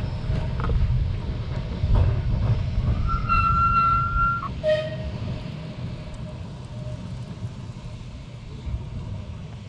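Electric tram rolling away along the rails, its low rumble fading as it goes. About three seconds in comes a high steady squeal lasting over a second that stops abruptly, then a single ringing note that dies away over a few seconds.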